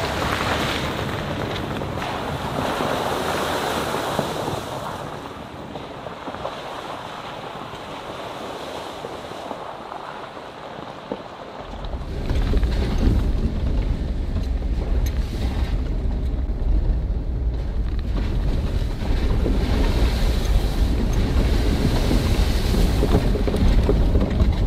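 Strong gusty wind on the microphone: a steady rushing for the first half, then heavy low buffeting from about halfway through.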